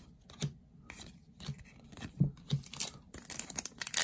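A few light clicks and rustles as trading cards are handled. Then, about three seconds in, a foil booster pack wrapper crinkles and tears as it is ripped open.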